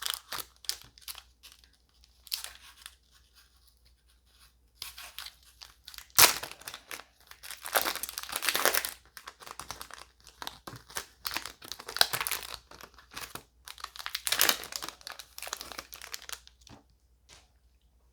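A foil trading-card booster pack being torn open, its wrapper crinkling and tearing in irregular bursts, with a sharp snap about six seconds in.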